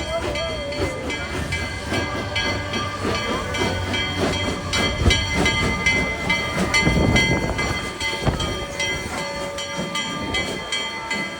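Passenger train pulling into a station platform, its running gear rumbling and clanking along with hissing. The sound is loudest about halfway through.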